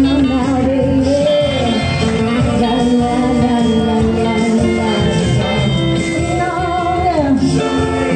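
Live acoustic music: a woman singing into a microphone with guitar accompaniment.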